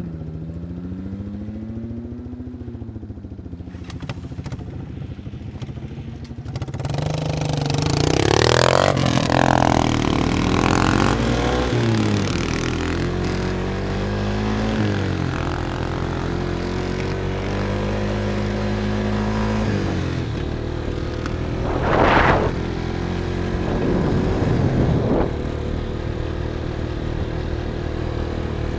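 Quad (ATV) engine running on a trail, its pitch rising and falling as the throttle is worked. From about seven seconds in it gets louder and rougher, with scraping and clattering over the terrain and a brief sharp burst about two-thirds of the way through.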